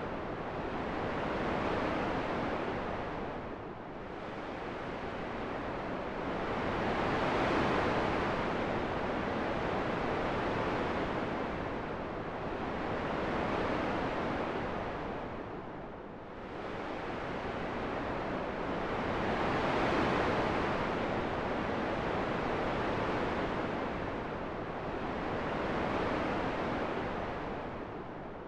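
Rushing wind sound played for sleep, a steady hiss that swells and eases every several seconds like slow gusts.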